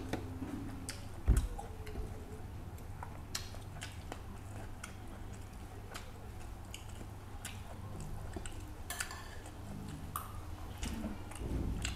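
Close-up eating sounds: chewing and lip smacking, with fingers scooping rice in a bowl, making many small scattered clicks. One low thump comes about a second in.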